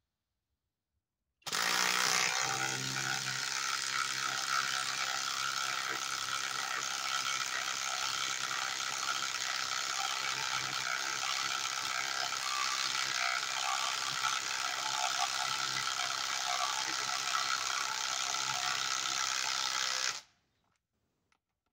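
Kobalt XTR 24-volt cordless impact driver hammering continuously as it drives a large screw down into the end of a log. It starts about a second and a half in, runs for nearly twenty seconds without a break, and stops sharply near the end.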